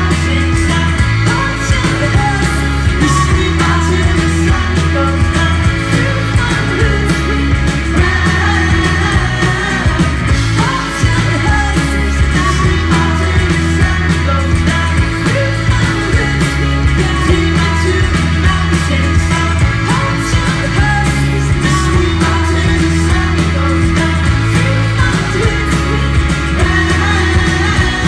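Indie-folk band playing live and loud: sung vocals over strummed acoustic guitars, electric guitar, keyboards and drums with a steady beat, recorded from the crowd.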